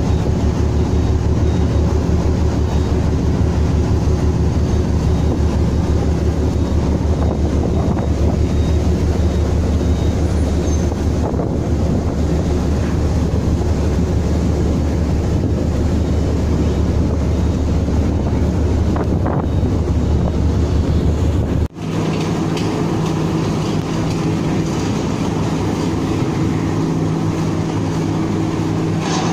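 Steady low drone of a ro-ro ferry's diesel engines, heard from on deck. About 22 s in the sound cuts abruptly to a different steady machinery hum with higher tones.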